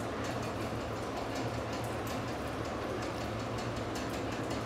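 Steady room noise: an even hiss over a low hum, with faint crackle, at a constant level.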